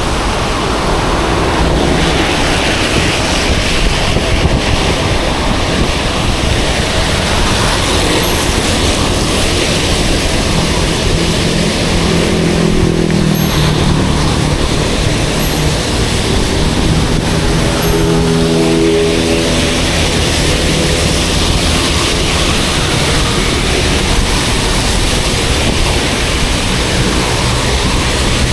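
Loud, steady rush of wind and wet road noise on an action camera's microphone while cycling in the rain. A motor vehicle's engine hums past about halfway through, and again a few seconds later.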